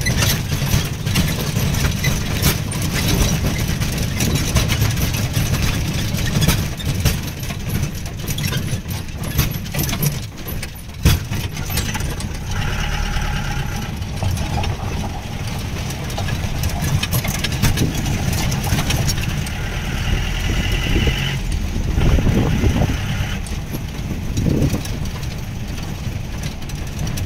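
Jeep engine running as the vehicle drives along a rough road, heard from inside the open-sided cabin: a steady low rumble with frequent rattles and knocks from the body and frame, and one sharp knock about 11 seconds in.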